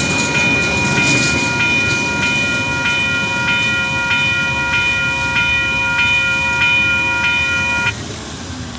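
Level crossing warning bell ringing about twice a second, with the rumble and clatter of the last coal wagons rolling over the crossing underneath. The bell cuts off suddenly near the end as the crossing lights go out.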